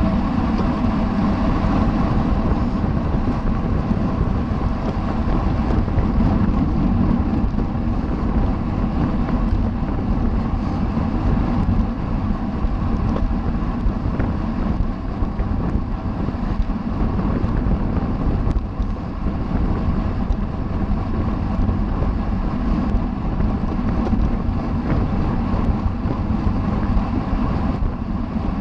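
Steady wind rush buffeting the microphone of a camera carried on a racing bicycle at speed.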